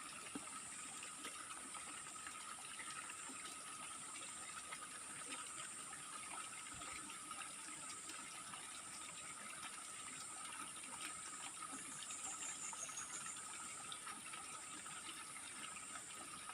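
Faint, steady rush of water at a waterfall. Over it run a high, steady, slightly wavering drone and a lower steady tone.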